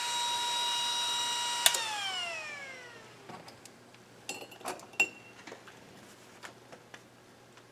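Small 24 V DC cooling fan running with a steady whine; about a second and a half in there is a click and the whine falls in pitch as the fan spins down and fades out. A few light clicks of clip leads and parts handled on the bench follow.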